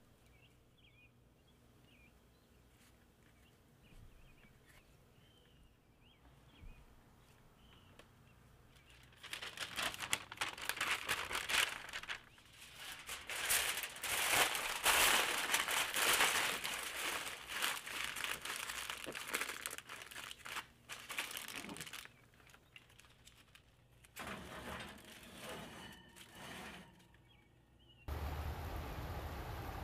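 Aluminium foil crinkling and crumpling as gloved hands press and fold it over a clay pot, loud and dense from about nine seconds in, then softer crackles. A steady rushing noise takes over near the end.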